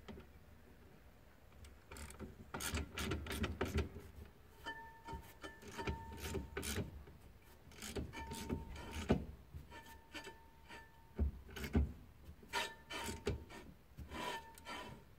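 Horse-trailer brake drum turned by hand in repeated pushes, its new brake shoes scraping against the drum with clicks and about half a dozen short squeaks. The shoes are set to drag lightly, so the drum turns neither too easily nor too stiffly.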